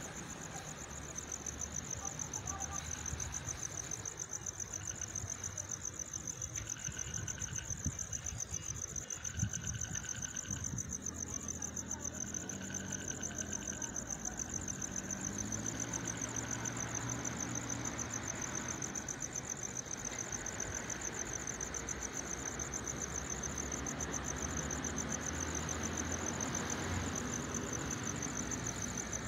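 Crickets chirping in a steady, high, continuous trill, over a low hum that shifts in pitch in the second half. No thunder is heard.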